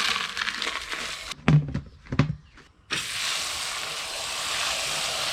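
Feed being soaked for the chickens: a short pouring rush and a couple of knocks against the container, then steady running water from about three seconds in as the feed is wetted down.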